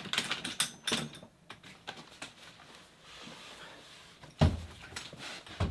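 Plastic and metal parts of a portable baby cot's folding frame clicking and rattling as they are handled, followed by two heavy thumps about a second apart near the end.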